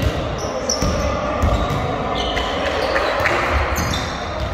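Basketball bouncing on an indoor court, a dull thud every half second to a second, with short high squeaks in between.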